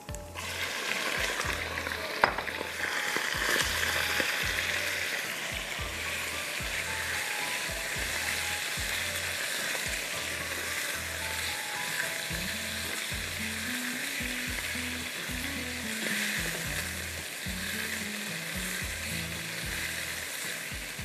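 Sliced beef undercut dropped into hot oil and garlic in a nonstick wok, sizzling steadily as it stir-fries over high heat while a spatula stirs it, with a sharp knock about two seconds in. Background music with a steady low beat runs underneath.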